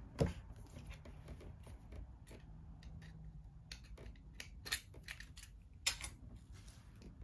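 Packs of game cards being unwrapped: faint rustling of packaging with a few sharp clicks, the loudest just after the start and two more past the middle.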